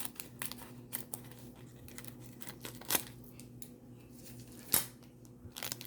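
Foil wrapper of a Donruss basketball card pack being torn open and crinkled: a scatter of small crackles and ticks, with two sharper snaps about three and five seconds in.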